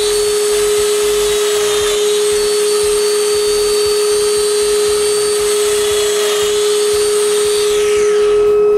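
Festool Domino joiner's motor running steadily while cutting mortises in a rail end, its whine dipping slightly about two seconds in and starting to wind down near the end.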